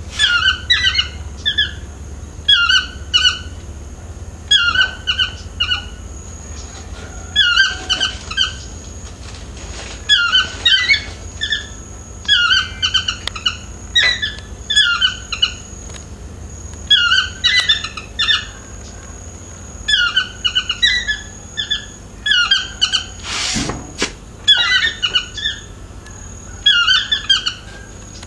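A yellow-throated (chestnut-mandibled) toucan calling over and over, a short phrase of yelping notes about every one and a half to two seconds.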